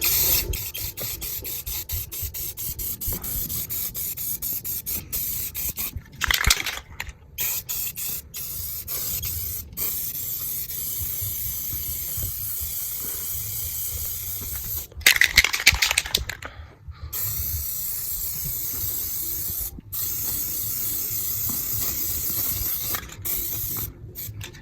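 Aerosol spray-paint can hissing in repeated sprays, cut by many short breaks, as black paint goes onto a wooden shelf. Two stretches of the spray come louder and harsher, about six seconds in and around fifteen seconds.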